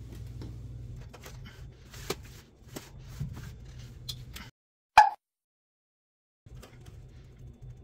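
Low steady hum from an open oven, with scattered light clicks and ticks. About five seconds in comes one sharp knock; the sound then drops out for about a second and a half before the hum returns.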